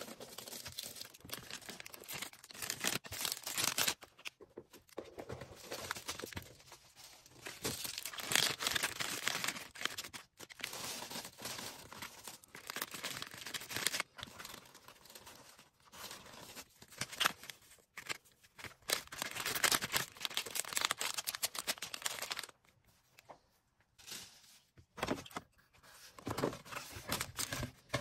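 Plastic packaging being handled for an order: irregular crinkling and rustling with tearing sounds, pausing briefly a few times.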